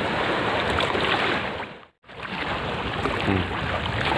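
Steady wind and choppy sea noise on an outdoor microphone by the water. It drops out to silence for a split second about halfway through, then returns.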